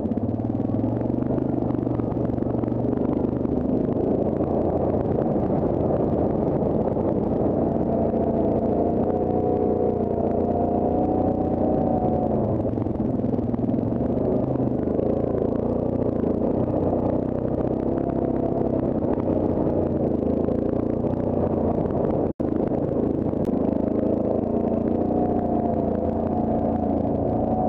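Yamaha Grizzly ATV's single-cylinder engine running at low trail speed on a rocky dirt track, its pitch rising and falling gently with the throttle. The sound drops out for a split second about three-quarters of the way through.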